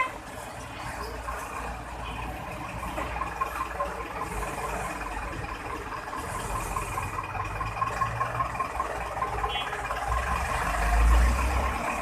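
Street traffic noise with a long run of short, evenly spaced high beeps, and a low vehicle rumble that swells near the end.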